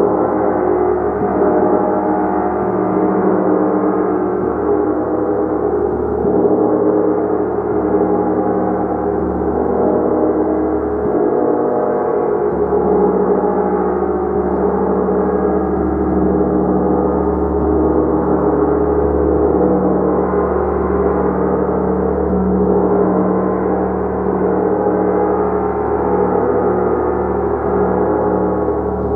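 Gong played continuously: a steady, dense wash of many overlapping ringing tones, with a low tone pulsing near the end.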